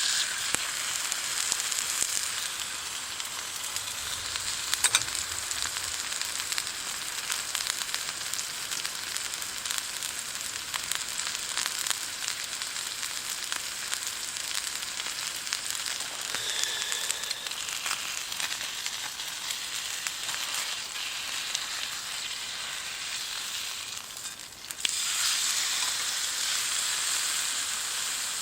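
Food sizzling and frying in a hot pan over a campfire, a steady hiss with many small pops and spits. It drops away briefly near the end, then sizzles again louder.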